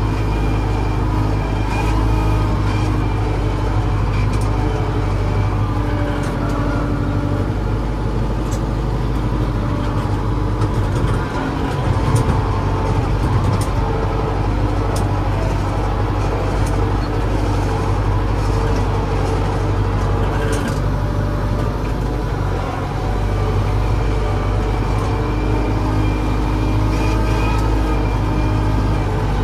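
Diesel engine of an LS 80 front-loader tractor running steadily, heard from inside the tractor's cab, with a brief dip and then a rise in level about eleven seconds in and a smaller dip a little past twenty seconds.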